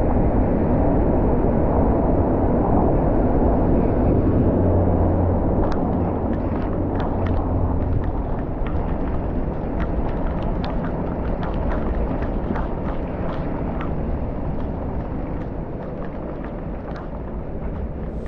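Torrential typhoon rain and the road noise of a car driving through it: a dense, steady rush that eases slightly after about six seconds. From then on, many sharp ticks of heavy drops strike the car.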